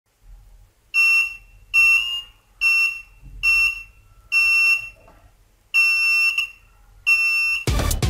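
Piezo buzzer of a homemade laser tripwire alarm (BC547 transistor switched by an LDR) beeping seven times in short, unevenly spaced, high-pitched beeps, each time the laser beam falling on the light sensor is blocked and the alarm trips. Near the end a burst of music cuts in.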